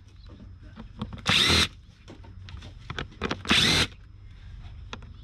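Cordless impact driver with a T25 Torx bit running in two short half-second bursts, about two seconds apart, as it backs out the screws on a car's air box lid. Faint clicks of handling come between the bursts.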